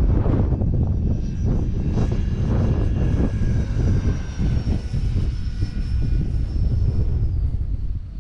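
Electric ducted-fan whine of an E-flite F-15 RC jet in flight, its pitch drifting slowly downward and dropping a little more near the end, over heavy wind buffeting on the microphone.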